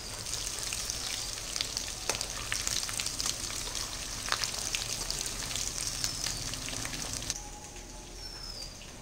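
Hot oil sizzling and crackling, with frequent sharp pops, around whole parboiled potatoes shallow-frying in a steel kadhai as they are cooked toward golden brown. The sizzle drops away abruptly about seven seconds in.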